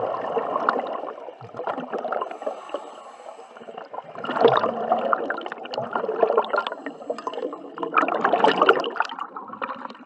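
Scuba diver's exhaled air bubbling out of the regulator underwater, in three or four gurgling surges a few seconds apart.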